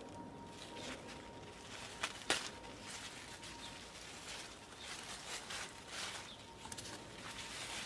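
Large zucchini leaves and stems rustling as they are lifted and handled, with two sharp clicks a little over two seconds in. A faint steady high tone sits in the background.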